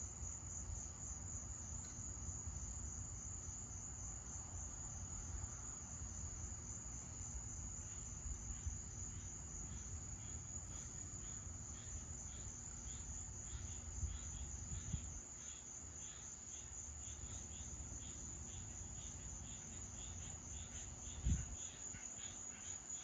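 Crickets chirping in a steady, high, continuous trill, joined about ten seconds in by a second, lower pulsing chirp. Underneath is a low rumble that fades after the middle, and there is one short low thump near the end.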